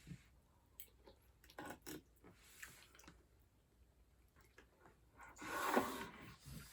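Quiet eating: faint scattered clicks and small utensil and mouth noises, with a short louder sound about five and a half seconds in.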